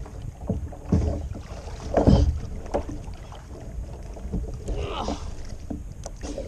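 Sea water sloshing and lapping around a kayak, with a few short, louder splashes from a swimmer in the water beside it.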